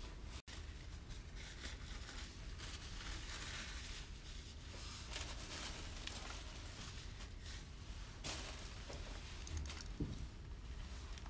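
Faint rustling and crinkling as a flaky egg tart is handled and eaten, with a brief dead gap about half a second in.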